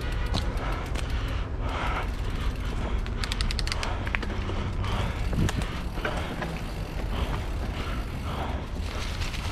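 Nukeproof Scout 290 hardtail mountain bike riding down a dirt singletrack: wind and tyre rumble on the handlebar microphone, with the bike rattling and clicking over the trail. About three seconds in there is a short run of rapid ticks.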